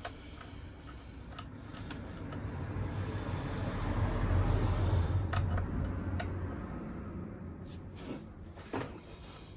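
A bolt being fed by hand into a freshly fitted Heli-Coil thread insert: a few light metallic clicks over a low rumble of handling noise that swells in the middle and fades.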